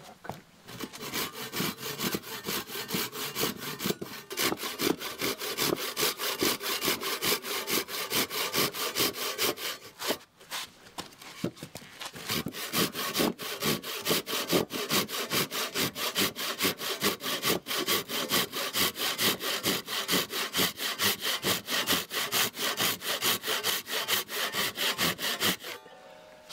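Hand sawing with a resharpened Japanese ryoba pull saw through a softwood board: rapid, even rasping strokes, with a brief pause about ten seconds in, ending shortly before the end. The teeth have just been resharpened and their set adjusted with light taps, and these strokes are testing how the saw cuts and sounds.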